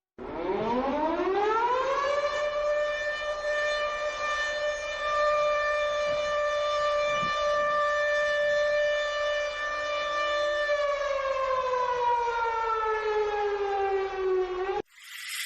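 A siren winds up in pitch over about two seconds and holds one steady wail. It then slowly winds down in pitch and cuts off suddenly just before the end.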